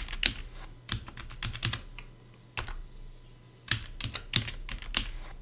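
Computer keyboard keystrokes: quick runs of key presses, with a lull of about a second in the middle broken by a single key, then another fast run.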